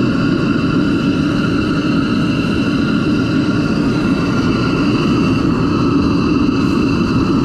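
A steady, loud machine hum over a rushing noise, with several fixed tones and no change in pitch.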